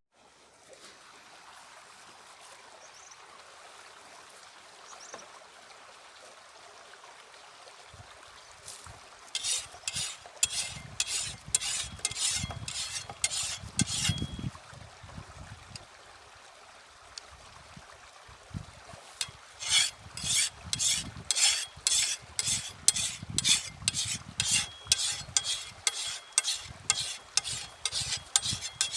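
Footsteps crunching through dry leaves and brush, about two steps a second, in two spells: a few seconds' walking about a third of the way in, then steady walking from about two-thirds of the way in.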